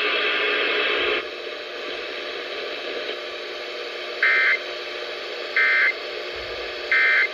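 Emergency Alert System end-of-message data bursts over an FM broadcast: three short, identical screechy digital bursts about 1.3 seconds apart over faint radio hiss, signalling the end of the tornado drill alert. A louder stretch of the alert audio cuts off about a second in.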